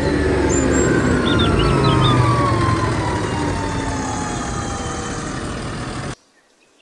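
Large Fendt tractor's diesel engine running as the tractor drives and turns, with a whine that slowly falls in pitch. Birds chirp briefly about a second in, and the sound cuts off suddenly near the end.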